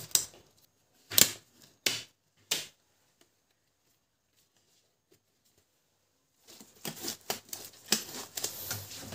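Disposable gloves being pulled on: three sharp snaps about a second apart. After a quiet spell, a crackling, crinkling rustle with many small clicks begins near the end.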